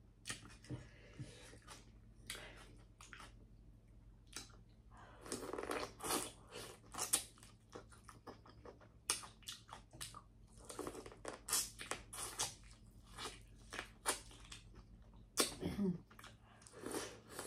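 A person chewing and eating seafood-boil food, with many short crunching and clicking mouth sounds coming irregularly.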